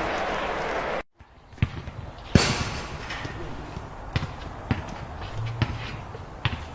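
Crowd applause that cuts off abruptly about a second in, followed by a basketball bouncing in irregular single bounces, the loudest bounce about a second after the cut.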